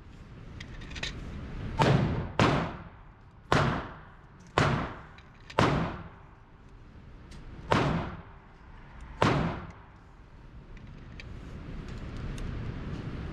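Seven handgun shots at an uneven pace, roughly one to two seconds apart. Each crack rings out briefly in the echo of an indoor firing range.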